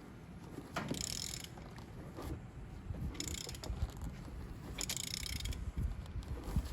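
Socket ratchet clicking in three spells as an RB25 engine is turned over by hand at the crankshaft, checking the timing marks after a new timing belt has been fitted.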